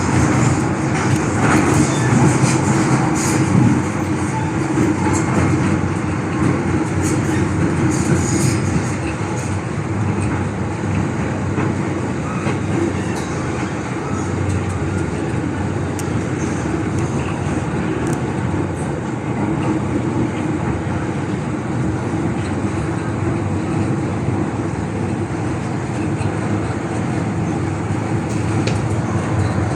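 MTR M-train electric multiple unit running between stations, heard from inside the car: a steady rumble of wheels on rail with a low running hum. Scattered clicks and rattles come in the first several seconds.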